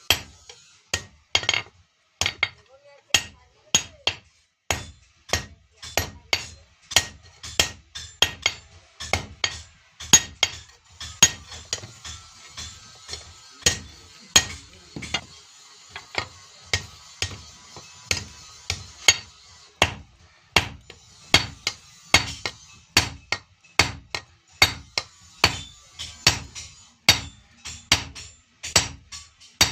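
Blacksmith's hand hammer striking iron on an anvil in a steady rhythm, about two ringing blows a second, as the blade is forged.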